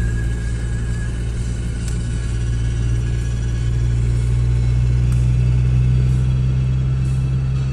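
Car engine and road noise heard from inside the cabin while driving on a highway: a steady low drone.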